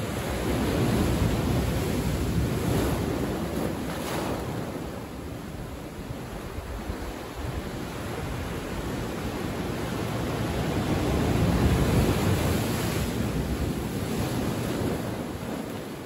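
Ocean surf breaking and washing in over rock shelves and sand. It swells twice, about a second in and again near the twelve-second mark, with a quieter lull between.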